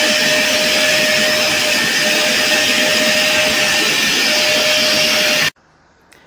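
A vacuum cleaner motor running steadily: a loud, even hiss with a faint constant whine. It cuts off suddenly near the end.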